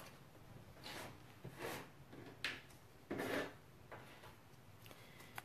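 Soft paper handling: a few short rustles and slides as sheets of glimmer paper and thin metal dies are arranged on a die-cutting pad, with a light tap about two and a half seconds in.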